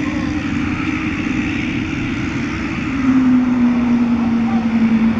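Twin Commander's twin turboprop engines running as the aircraft rolls along the runway, a steady propeller drone over engine noise. About three seconds in the drone gets louder and steps slightly lower in pitch.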